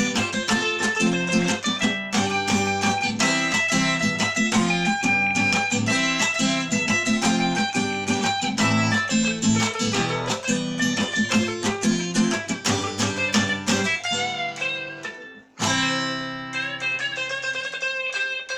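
Instrumental guitar playing, plucked strings in a steady rhythm, ending on a ringing chord that fades out.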